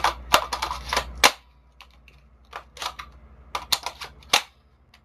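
DPMS A11 airsoft rifle being handled: an irregular run of sharp plastic and metal clicks and clacks as parts are fitted and worked, loudest and densest in the first second and a half, then sparser.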